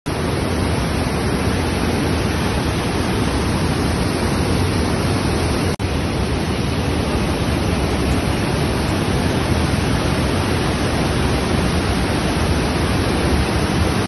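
Waterfall water rushing and cascading over rocks: a loud, steady wash of noise, broken by a split-second dropout about six seconds in.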